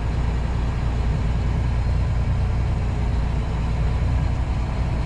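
Semi truck's diesel engine running steadily at an even throttle, with the engine brake off, heard inside the cab over a steady road noise.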